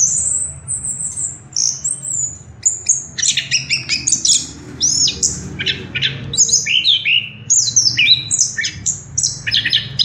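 Chestnut-capped thrush (anis kembang) in full continuous song: a fast, unbroken run of high, varied whistled phrases that sweep up and down, growing denser about three seconds in, over a steady low hum.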